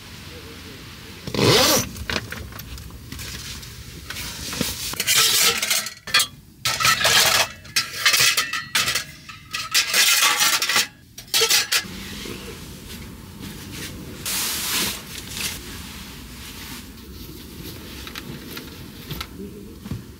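Dishes, pots and cutlery clinking and scraping while being washed up. There are loud noisy stretches in the middle that start and stop abruptly.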